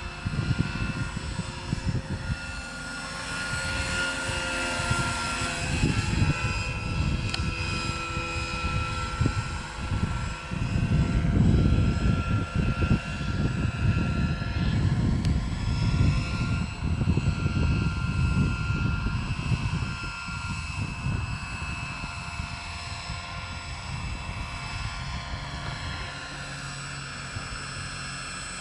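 Large radio-controlled scale EC145 helicopter in flight, converted to electric drive with a 340 KV Kontronic motor on 12S batteries. It gives a steady high whine over a gusty low rumble, and the rumble swells about a third of the way in.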